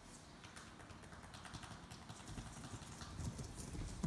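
Faint, scattered light taps and clicks, irregular and quick, with a slight rise in low rumble near the end.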